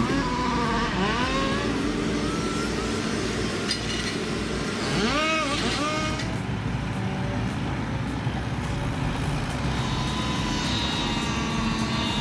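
Heavy machine's engine running steadily, its pitch swelling up and falling back a couple of times.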